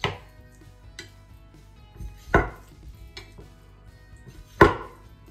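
Boning knife cutting around the foot joint of a chicken drumstick to sever the tendons, the blade knocking down onto a wooden cutting board: three sharp knocks about two seconds apart, with fainter taps between.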